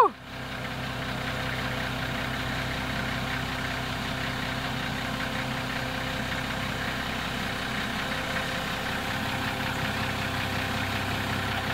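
Engine of the car-lifting machine running steadily at idle.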